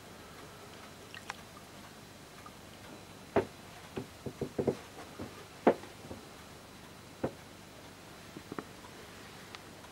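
A scattering of sharp, irregular knocks and clicks in a quiet small room, bunched closely together in the middle and a few more spread out near the end.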